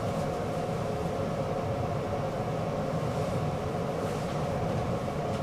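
Prague tram running along its tracks: a steady rumble of wheels and running gear with a constant hum.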